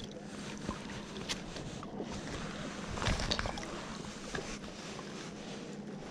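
Water sloshing and dripping around an inflatable float tube as a trout is lifted out of a mesh landing net, with small handling ticks. A louder splash comes about three seconds in.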